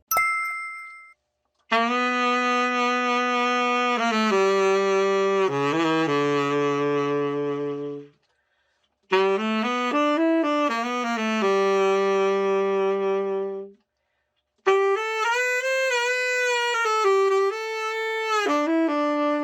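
Yanagawa YTS-601 tenor saxophone played solo in three short phrases of held notes stepping between pitches, with silent breaks between them: a play-test of the horn after its full overhaul.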